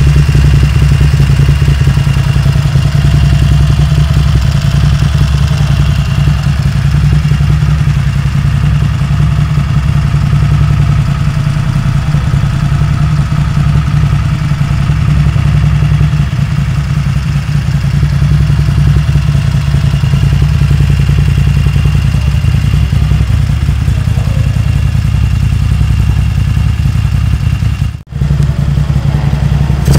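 Dynotec-tuned Moto Guzzi Le Mans racing motorcycle's air-cooled V-twin running steadily at idle, loud and even. The sound drops out for an instant about two seconds before the end.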